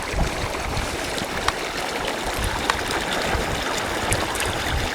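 Steady rushing noise, like running water, with an uneven low rumble underneath and a few sharp clicks.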